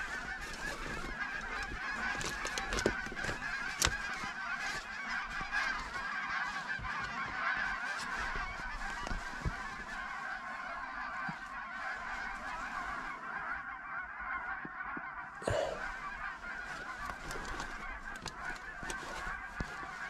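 A large flock of geese honking continuously overhead, many calls overlapping into a steady chorus, with a couple of sharp knocks about three and four seconds in.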